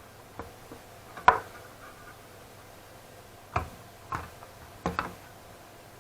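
A handful of separate sharp clicks and taps from small hard parts of a graphics card being handled and set down during a thermal paste job. The loudest comes about a second in, and a cluster follows near the end.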